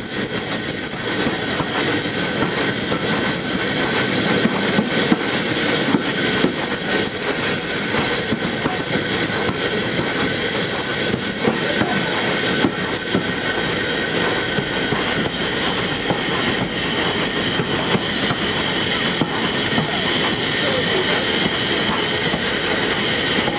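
Small steam tank locomotives moving slowly along a station platform, heard from aboard: continuous rattling and clanking of the engines and their wheels on the rails, with steady high tones throughout.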